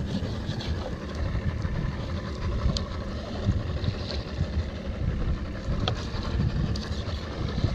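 Wind buffeting the microphone on an open boat, an uneven low rumble with hiss, and a few faint sharp clicks of a fillet knife against a plastic cutting board as bait is cut.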